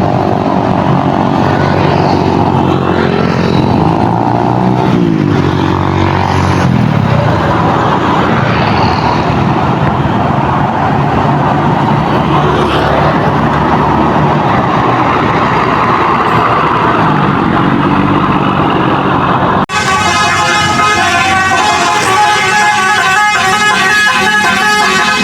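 Basuri 'telolet' multi-tone bus horn playing melodic sequences of loud, stepping and gliding notes over the bus's running engine. About twenty seconds in, the sound cuts off abruptly and a denser, rhythmic tune follows.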